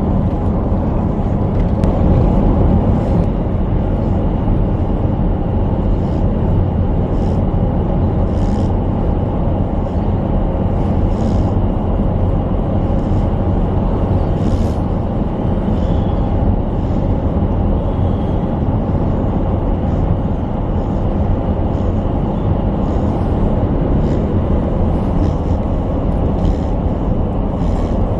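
Steady rumble of a truck driving on the road, engine and tyre noise heard from inside the cab.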